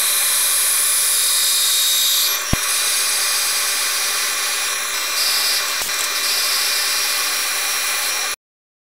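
CNC milling machine spindle running at high speed with its end mill cutting through a printed circuit board panel: a steady, high-pitched whine and hiss. A single sharp click about two and a half seconds in, and the sound cuts off abruptly near the end.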